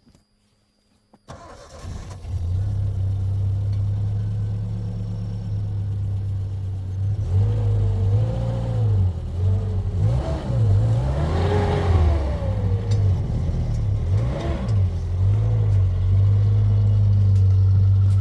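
A car engine starts about a second in and runs, its revs rising and falling over and over in the middle before settling back to a steady run near the end.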